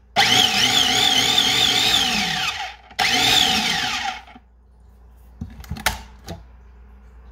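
Small electric food processor run in two pulses, about two and a half seconds and then one and a half, blending an oil-and-vinegar dressing with greens. Each time the motor whines up to speed, wavers, and winds down. A few sharp clicks follow near the end.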